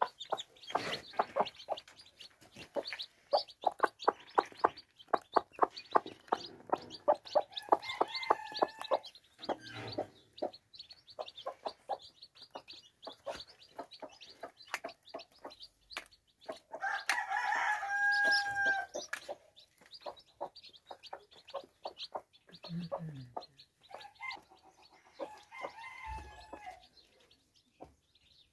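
Domestic chickens clucking in quick runs of short calls, with longer drawn-out calls a little past halfway and again near the end.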